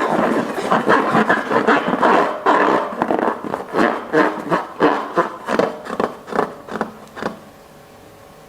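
Sticky slime being squished and kneaded by hand, giving a fast run of wet squelching, crackling strokes that grow sparser and stop about seven seconds in.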